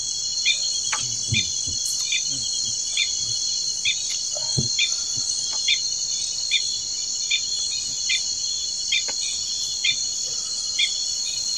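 Night insect chorus: crickets and other insects keep up a steady high-pitched drone, with a lower chirp repeating evenly about every two-thirds of a second.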